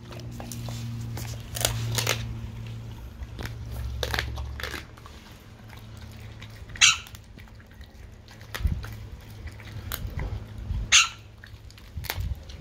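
A dog chewing raw turkey wings, the bones crunching between its teeth in sharp, irregular cracks, with a low steady hum under the first few seconds.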